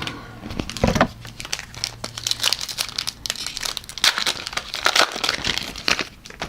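Foil trading-card pack wrapper crinkling and tearing as it is ripped open and crumpled by hand, with irregular crackles throughout.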